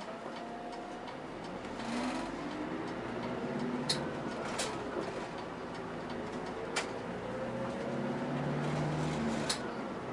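Interior noise of a moving city route bus: the engine and drivetrain running, their pitch slowly rising and falling as the bus drives on, with a few sharp clicks and rattles from the cabin fittings.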